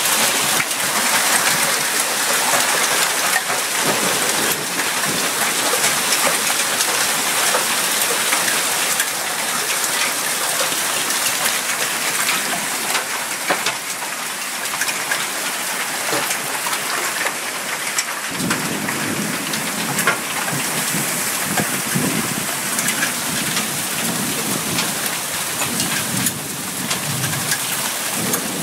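Heavy hail mixed with rain pounding down on grass, pavement and standing water: a dense, loud, steady hiss with many small sharp impacts of penny- and quarter-sized hailstones. About two-thirds of the way in, a low rumble joins the din.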